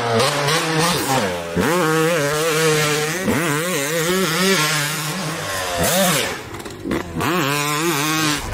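Two-stroke Suzuki motocross bike ridden hard, its engine pitch rising and falling again and again as the throttle is opened and chopped through the corners, with a couple of brief drops in level late on.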